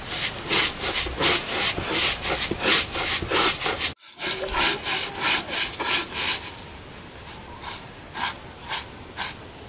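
Cylindrical stone roller rubbed back and forth over a flat grinding stone, crushing vinegar-wetted mustard seeds into paste. Quick, gritty rasping strokes come about four a second, with a brief gap about four seconds in. The strokes thin to a few scattered ones in the last few seconds.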